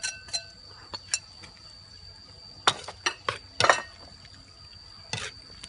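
Metal spoon and spatula scraping and clinking against a ceramic bowl and a steel wok as beaten egg yolk is scraped in and stirred through minced pork. The scrapes come irregularly, the loudest a little past the middle.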